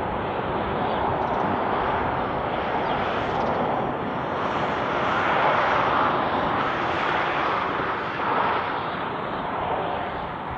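Steady distant drone of the diesel locomotives hauling an approaching coal train, swelling slightly midway.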